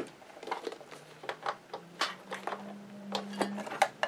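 Scattered light clicks and clacks of electrical plugs, cords and a plastic foot-controller being handled and connected. A faint steady low hum comes in about halfway through.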